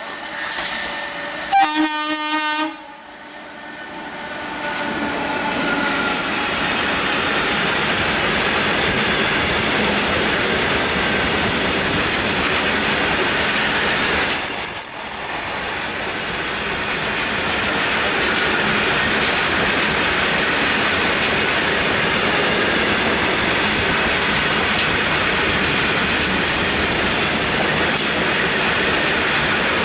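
Indian Railways WAG-7 electric freight locomotive sounds one short horn blast about two seconds in. Then a long freight train's wagons pass close by, a steady, loud noise of wheels running on the rails that swells over the next few seconds and holds.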